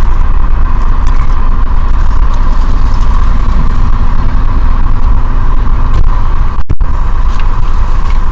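Steady loud low rumble of a car with its engine running, heard from inside the cabin, with a brief cut-out near the end.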